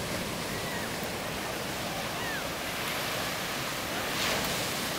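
Ocean surf breaking on the beach, a steady rush mixed with wind buffeting the microphone.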